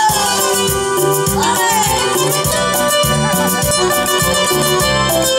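Live Latin-style pop music in an instrumental passage between sung lines: an amplified nylon-string acoustic guitar strummed over keyboard backing, with a steady bass and percussion rhythm.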